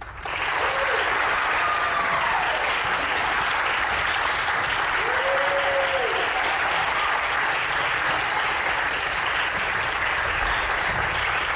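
Audience applauding, breaking out suddenly as the piece ends and holding steady, with a couple of long calls from the crowd that rise and fall in pitch.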